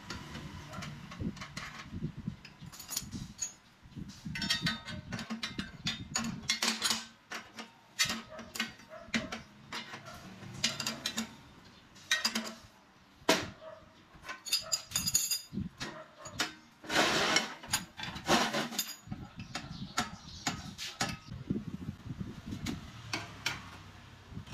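Steel ring spanners clinking and clicking against a nut, a bolt and an angle-iron frame as the nut is tightened. The knocks and clicks come irregularly, some with a short metallic ring.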